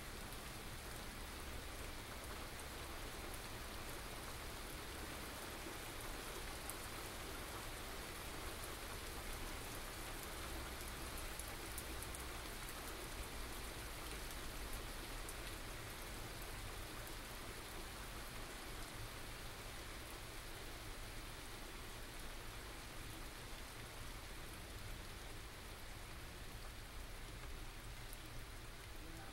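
Steady rain from a small thunderstorm, falling without a break, with scattered close drops ticking through it.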